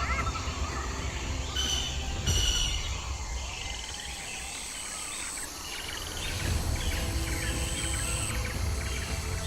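Forest ambience: several birds chirping and calling, over a steady high tone and a low rumbling background noise.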